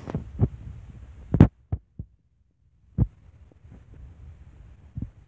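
Dull low thumps at uneven intervals from walking while holding the camera: footfalls and handling knocks picked up by the mic. The loudest comes about a second and a half in. Between them is a faint low rumble.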